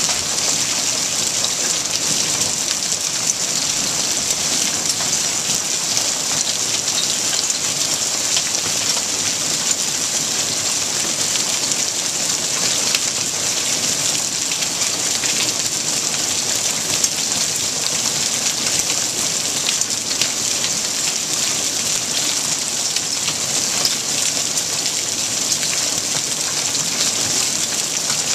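Small hail pelting a concrete pool deck, a patio mat and pool water: a steady, dense patter of countless tiny impacts.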